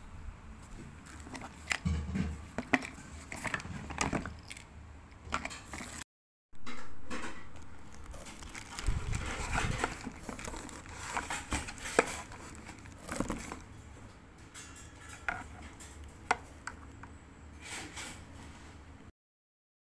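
Hard plastic trimmer parts and a battery pack being handled over a cardboard box: scattered clicks, knocks and crinkling of packaging. The sound cuts out briefly about six seconds in and stops about a second before the end.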